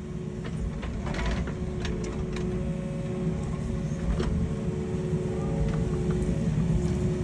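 An engine running steadily: a low rumble with a faint steady whine above it, slowly growing louder, and a few light knocks.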